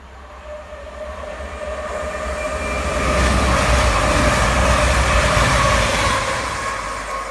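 East Midlands Railway Class 222 Meridian diesel-electric multiple unit passing at speed. Its engines and wheels on the rails grow louder over the first few seconds as it nears, then hold loud as the cars pass close by, with several steady whining tones over the rumble.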